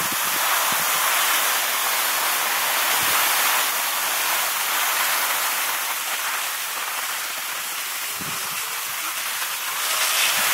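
Steady hiss of skis sliding over snow.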